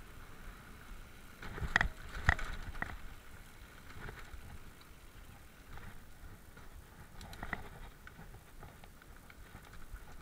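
Mountain bike rolling down a dirt forest trail: steady tyre rumble and frame rattle, broken by three sharp knocks about two seconds in and another a little past the middle as the bike jolts over bumps.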